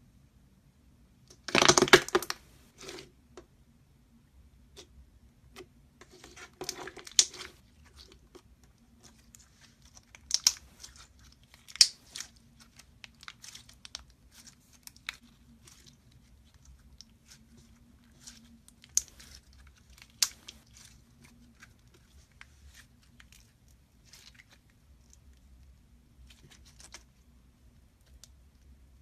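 Slime being squeezed and poked by hand, giving bursts of crackling and sharp pops. The loudest burst comes about two seconds in, with another cluster a few seconds later and then scattered single snaps.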